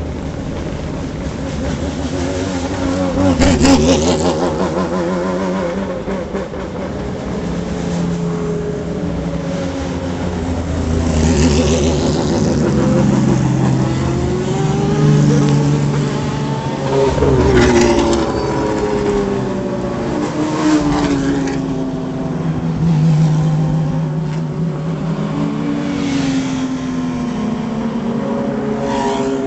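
GT race cars passing one after another at parade pace, their racing engines revving up and easing off. The sound keeps running, and several louder passes swell and fade, with the engine pitch rising and then falling as each car goes by.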